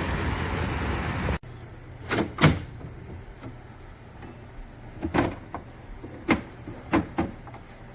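Portable air conditioner's fan blowing steadily, with no cooling, which the owner takes as a sign the compressor may not be working. The blowing cuts off suddenly about a second and a half in, leaving a low hum and a handful of sharp knocks.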